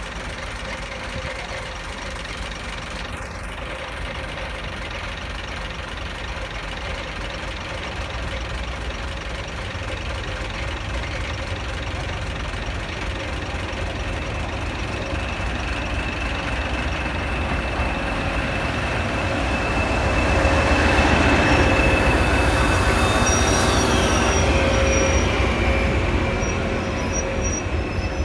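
Diesel locomotive hauling coaches into a station platform. Its engine rumble grows louder as it approaches. In the second half, high squeals from the brakes and wheels, one sliding down in pitch, as the train slows to a stop.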